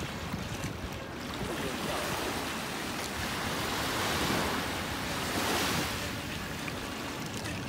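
Choppy harbour water washing and wind on the microphone: a steady rushing noise that swells a little around the middle.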